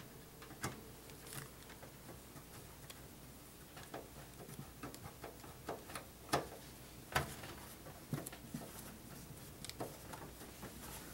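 Irregular light clicks and taps of metal parts and screws as a power supply is screwed into a computer case. The two loudest knocks come about six and seven seconds in.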